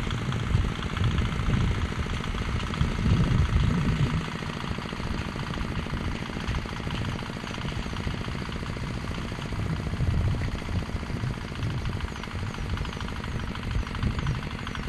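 Homemade mini tractor's engine running with a rapid, even chugging beat while it pulls a hay drag. A heavier, uneven low rumble is strongest in the first few seconds.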